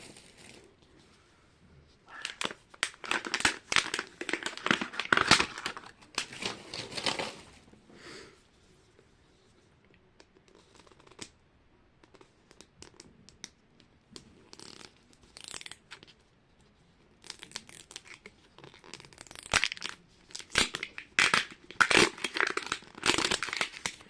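Plastic wrapping crinkling and tearing in two long bursts, a toy capsule's wrapper being torn open, with a quieter stretch of a few light clicks in between.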